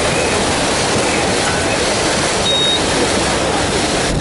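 Steady rushing noise of a river passenger boat underway, its engine and the water along the hull blending into one even roar. A brief high-pitched tone sounds about halfway through.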